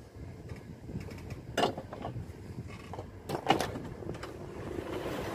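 Handling noise from circuit boards and wires being moved about inside a metal amplifier chassis, with a sharp knock about a second and a half in and a cluster of knocks around three and a half seconds, over a low steady rumble.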